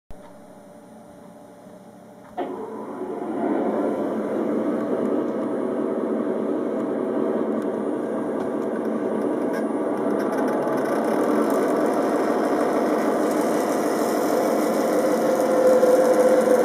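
Computer-simulated diesel locomotive engine sound played through a stereo system for a model diesel shunter. It cuts in abruptly about two seconds in, builds for a moment, then runs steadily, a little louder near the end.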